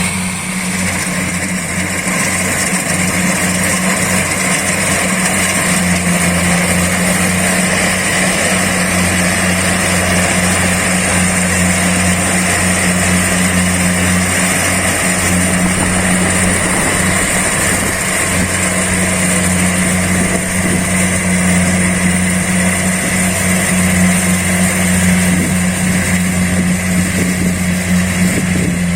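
Combine harvester engine running steadily at a constant speed, a continuous drone with no change in pitch.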